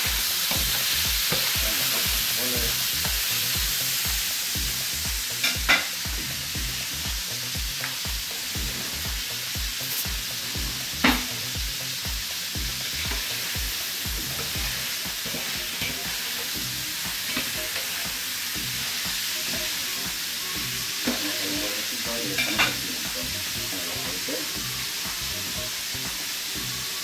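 Paella ingredients sizzling in a steel paella pan as a metal spatula stirs them, with a few sharp clicks of the spatula on the pan, about five seconds in, around eleven seconds and about twenty-two seconds in.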